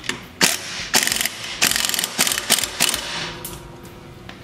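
Metal ratcheting clicks in several short rapid runs, mixed with a few sharp clanks, dying away about three seconds in.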